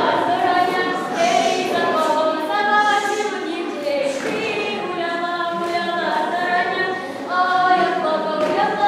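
Female voices singing a song together without accompaniment, in long held notes that slide from one to the next.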